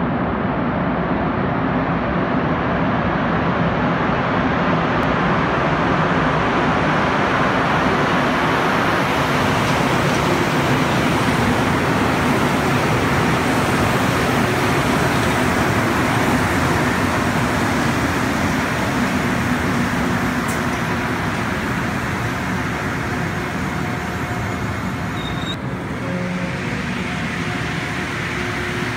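Montreal Metro MR-73 rubber-tyred train running along the platform, a steady loud rumble of its tyres and motors that eases slightly near the end.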